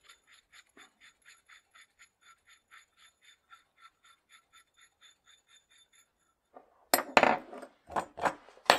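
Faint metallic ticking, about four ticks a second, as a coaster brake cone is turned along a threaded bicycle hub axle. It stops about six seconds in, and near the end come loud metal clinks and clatter as the axle and its parts are set down on the bench.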